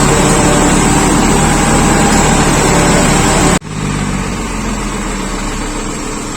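Vehicle engine running hard and steady, loud. A little over halfway through the sound cuts off suddenly, and a quieter engine sound follows.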